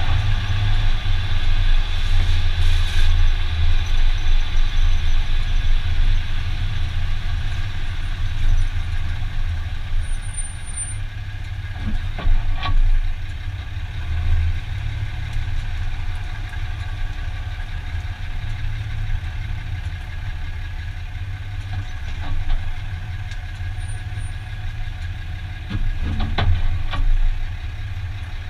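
2015 Dodge Ram 2500 pickup running steadily, a low hum with a steady whine above it, with a few short sharp knocks about twelve seconds in and again near the end.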